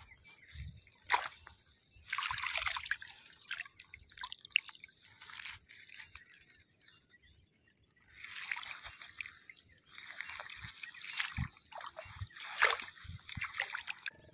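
Shallow water splashing, dripping and trickling in short irregular bursts as a float-lined fishing net and its pole are hauled through it by hand, with a brief silence about halfway.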